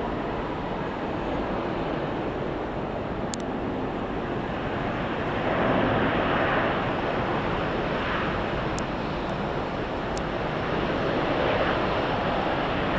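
Strong, gusty storm wind rushing over the microphone, a steady noise that swells a little about six seconds in and again near the end.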